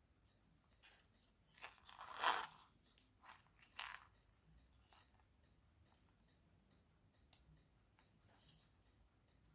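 Handling noise on a workbench: a few short crackly scrapes and rustles, the loudest about two seconds in, over a faint regular ticking of about two clicks a second.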